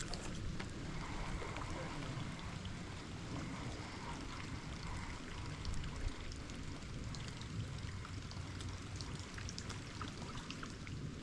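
Steady rain falling, a continuous hiss with scattered sharp drop ticks over a low rumble.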